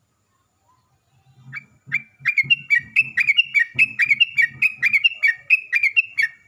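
Sooty-headed bulbul (trucukan) singing a fast run of short whistled notes, about four a second. The run starts about a second and a half in and continues to the end. This is the rapid 'ropel' song used as a lure call to make other trucukan answer.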